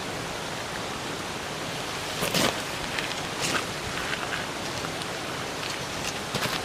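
Tarp fabric rustling and crackling in a few short bursts as the tarp is handled and a pole set up under it, the loudest about two and a half seconds in, over a steady rushing hiss.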